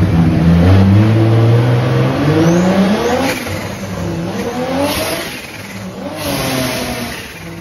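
JZ-swapped Nissan S13's engine revving on a chassis dyno during tuning: a long climb in pitch over about three seconds, then two shorter rises and falls, getting quieter near the end.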